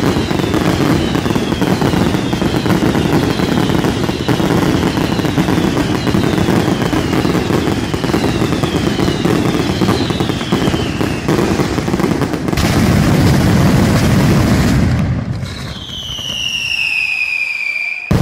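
Night mascletà fireworks barrage: a dense, continuous rumble of bangs and crackling, with short falling whistles about once a second. Near the end the barrage thins and one long, loud falling whistle sounds, then a heavy blast hits right at the close.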